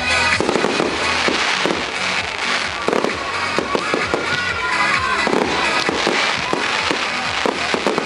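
Professional display fireworks going off in quick succession: repeated sharp bangs and crackles, with music playing alongside.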